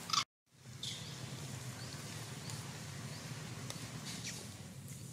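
Outdoor ambience: a steady low hum with a few brief, faint high chirps scattered through it. Right at the start there is a short, sharp high sound, and then the audio drops to dead silence for a moment.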